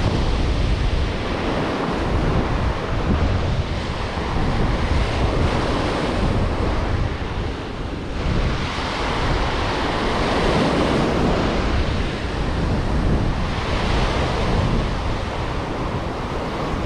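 Ocean surf breaking and washing up a sandy beach, a steady rushing wash that swells louder as each wave breaks, with wind buffeting the microphone.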